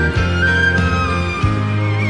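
Instrumental passage of a recorded song with no singing: a held melody line over steady, sustained bass notes.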